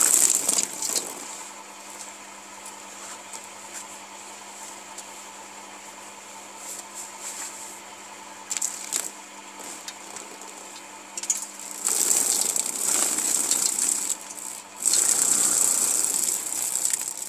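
Electric chicken-plucker drum, belt-driven with rubber plucking fingers, humming steadily as it spins. It breaks into loud rattling whenever a scalded chicken is pressed onto the fingers: at the very start, then twice near the end.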